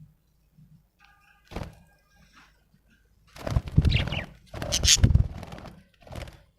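A budgie chirping amid loud rustling, thumping bursts. There is a short burst early, then two longer bursts of about a second each in the middle, and a short one near the end.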